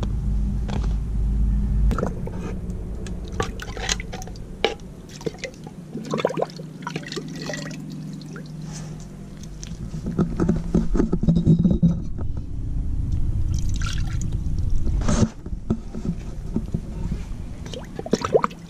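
Water sloshing and pouring as a bamboo tube is dipped into a clay pot of water and filled, among many short knocks and clicks from handling.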